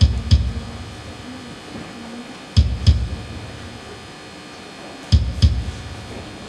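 Music with guitar over a slow beat: pairs of heavy low drum hits, the two about a third of a second apart, come round four times, about every two and a half seconds.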